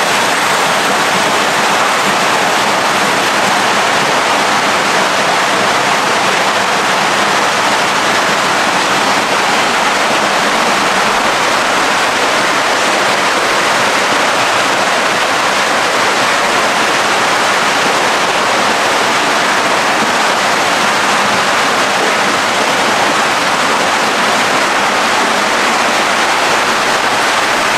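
Water pouring from inlet pipes into a koi pond, a steady, even rush of splashing water.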